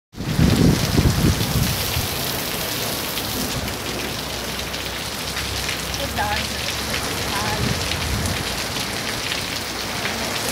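Heavy rain pouring down onto a paved street, a dense, steady hiss of downpour. The sound drops out for an instant right at the start, then picks straight back up.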